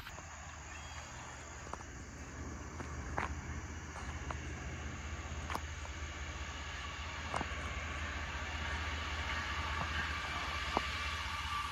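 Approaching Norfolk Southern diesel freight locomotive: a low, steady engine rumble that slowly grows louder as it nears, with a few faint scattered clicks.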